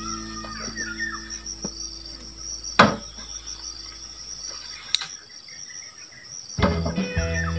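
Insects chirring steadily at a high pitch, with two sharp knocks, one about three seconds in and one about five seconds in.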